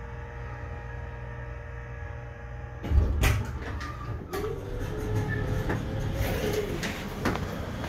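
Hydraulic elevator car running with a steady hum that cuts off about three seconds in as the car stops with a thump at the floor. The door operator then slides the steel doors open with a motor whine that rises, holds and falls, followed by a few clicks.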